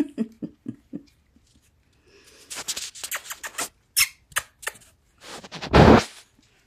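Rustling and scuffling as puppies move about on puppy pads and a cushion, with a few short squeaks in the first second, sharp clicks about four seconds in, and a loud rustle near the end.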